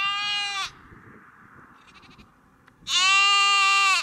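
Lamb bleating twice, two high, steady calls about three seconds apart, the second a little louder.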